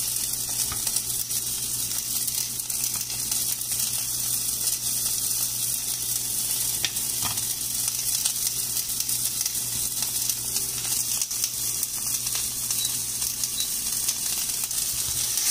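Steady sizzle of food frying in oil in a hot pan, with a few soft taps as bread slices are set down in a pan.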